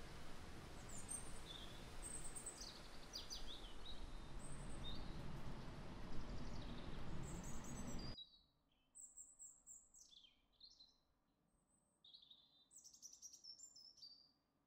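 Small songbirds chirping and whistling in short high calls, some sweeping downward, over a steady background hiss. About eight seconds in the hiss cuts off abruptly and the birdsong goes on alone.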